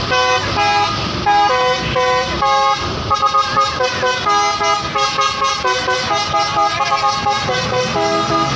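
Tour bus basuri telolet horn playing a melody of short horn notes, several pitches sounding together and changing every fraction of a second, with a fast run of very short notes around the middle.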